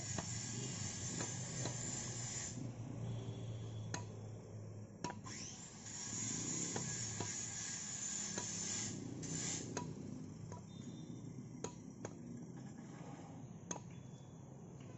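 A hammer tapping a blade into the end of a wooden spade handle, trimming the wood: sharp, irregular taps roughly once a second, some with a brief metallic ring, over a background hiss that comes and goes.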